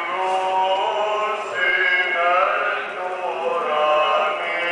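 Men chanting a slow Greek Orthodox Easter hymn, long held notes sliding from pitch to pitch.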